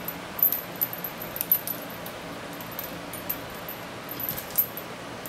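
Metal trapeze chains and their hooks jingling and clinking as the bar and rings are moved. The clinks come in clusters about half a second to a second and a half in, and again just after four seconds.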